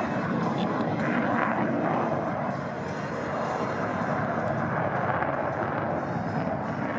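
Jet noise from a Lockheed Martin F-35A Lightning II's single Pratt & Whitney F135 turbofan in flight: a steady, even rush of engine noise that dips slightly about three seconds in and comes back up.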